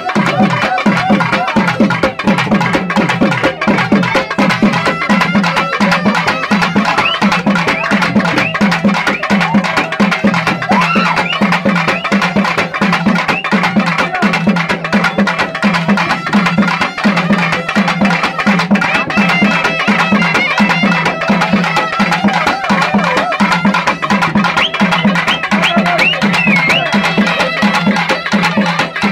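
South Indian folk festival music: fast, even drumming on barrel drums with a wavering melody line over it.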